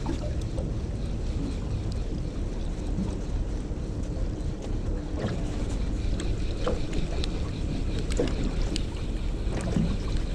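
Steady low rumble aboard a small aluminium boat, wind on the microphone and water against the hull, with a few light ticks and knocks in the second half.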